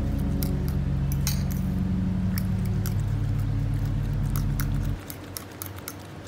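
A metal spoon clicking and scraping against a glass bowl while stirring chopped vegetables into beaten eggs for an omelette, with many short sharp clicks. It plays over background music with deep bass notes, which stop about five seconds in.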